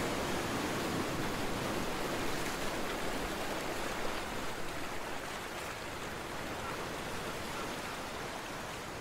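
Steady rushing noise, like surf, that slowly grows quieter.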